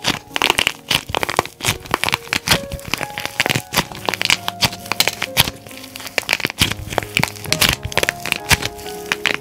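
Hardened plaster clay cracking and crumbling under squeezing fingers: a dense, irregular run of sharp cracks and crackles, over soft piano background music.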